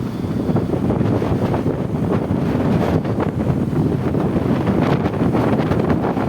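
Gale-force wind, around 25 m/s, buffeting the camera's microphone: a loud, continuous rumble that flutters with the gusts.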